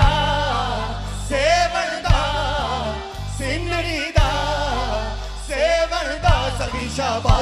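Live band playing a song: a male lead voice and backing singers sing long held, sliding lines over steady low bass notes, with a drum hit about every two seconds.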